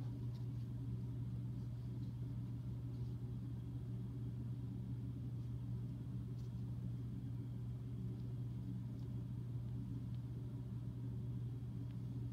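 A steady low hum, constant throughout, with a few faint ticks and rustles of hands handling slimy toy parts and paper towels.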